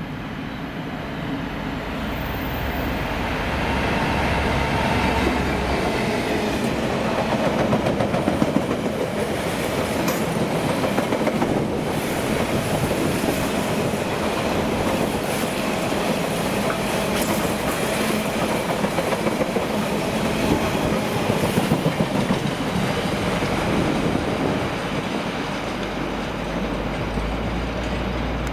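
Train running past on the line, a steady rumble lasting the whole stretch with occasional sharp clicks from the wheels.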